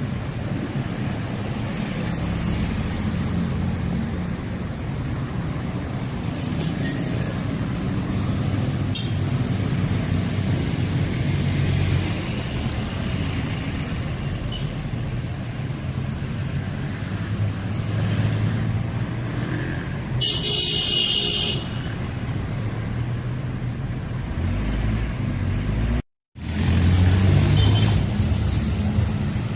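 Steady rumble of street traffic, cars and jeepneys passing. About two-thirds through, a loud vehicle horn sounds for just over a second. Near the end the sound cuts out briefly and comes back louder.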